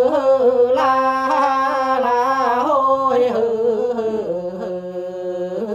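Unaccompanied male quan họ folk singing from northern Vietnam: a long held, ornamented vowel line with wavering pitch that steps down lower about three-quarters of the way through.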